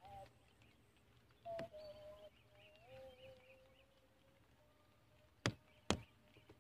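Faint birdsong: scattered chirps and a few held whistled notes. Two sharp clicks about half a second apart near the end.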